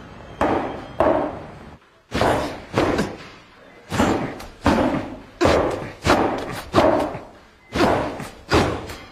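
Boxing punches landing on focus mitts: about a dozen sharp thuds at an uneven rhythm, with short gaps between runs of blows. The timing is off, a sign of a boxer whose mitt-punching rhythm has fallen apart.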